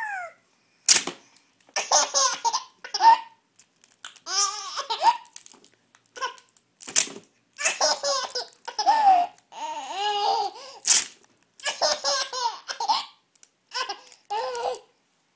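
Adhesive tape pulled off a roll in short, sharp rips, each answered by a baby's bursts of giggling laughter.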